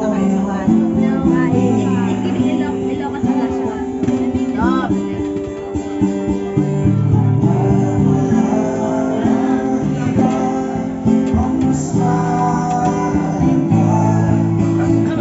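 Music with guitar and a singing voice, playing steadily throughout.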